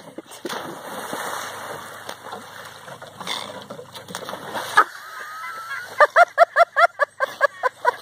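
Dogs swimming and splashing in a pond: a steady wash of moving water with a few sharper splashes. About six seconds in, a rapid run of short, high chirps starts, about six a second.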